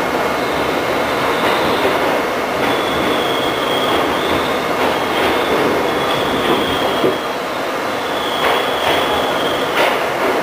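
Westinghouse R68 subway train running through a tunnel: a steady loud rumble of steel wheels on rail, with a high wheel squeal that comes and goes several times and a few sharp clicks over rail joints.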